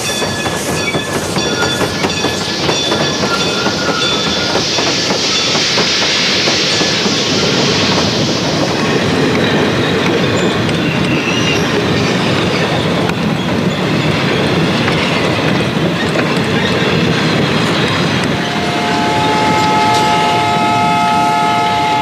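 A train running on rails: steady rumble and wheel clatter, with a strong hiss about four to eight seconds in. From about eighteen seconds in, a train horn sounds a steady chord of several tones.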